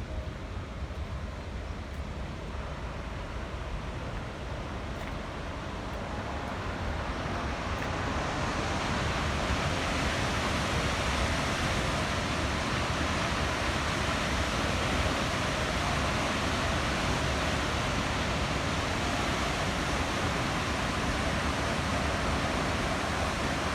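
Steady rush of water pouring from the dam, growing louder over the first several seconds and then holding steady, with wind rumbling low on the microphone.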